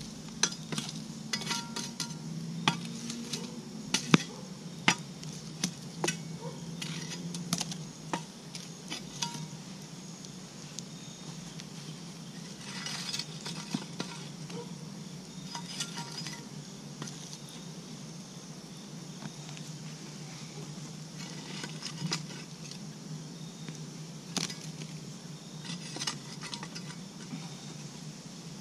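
Charred firewood logs clinking and knocking against each other as they are restacked on a burning campfire, over the fire's steady crackle.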